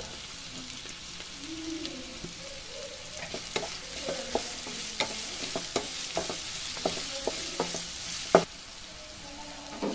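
Sliced onions sizzling in hot oil in a non-stick pan while a wooden spatula stirs them, clicking and tapping against the pan from about three seconds in. A sharper knock comes near the end, and the sizzle cuts off just after it.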